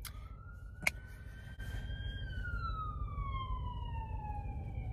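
Ambulance siren wailing: its pitch rises slowly for about two seconds, then falls steadily and starts to climb again at the end, over a low rumble. A brief sharp chirp cuts in about a second in.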